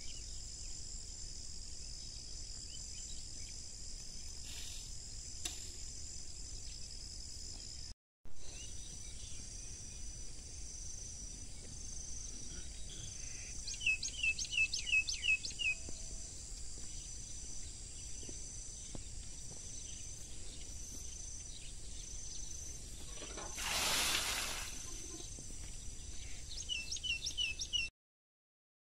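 Steady high-pitched chorus of insects, with a bird calling two quick runs of about six short descending chirps, and a brief swell of rushing noise about two-thirds of the way through.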